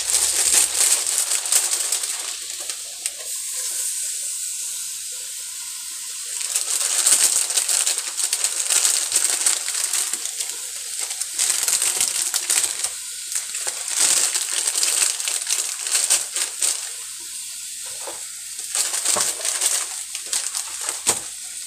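Hot chicken juice sizzling in a pot as fresh spinach leaves are dropped in and begin to wilt, with a plastic bag crinkling. The sizzle swells and eases several times.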